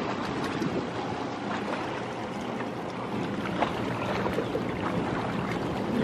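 Small waves lapping and splashing against the rocks of a seawall, a steady wash with many little splashes.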